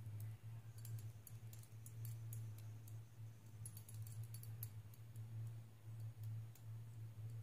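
Quiet room tone: a steady low hum with faint, scattered clicks.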